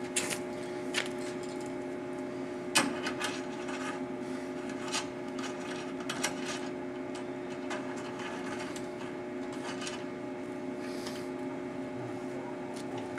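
Metal clicks and knocks as a welder's ground clamp is fitted to the steel workpiece by hand, a dozen or so short, irregular handling sounds. A steady hum runs underneath.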